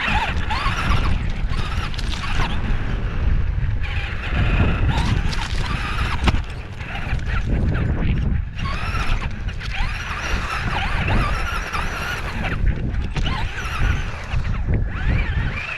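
RC car being driven at full power in bursts: a high squealing whine that wavers up and down in pitch over a heavy rumble, easing off briefly twice.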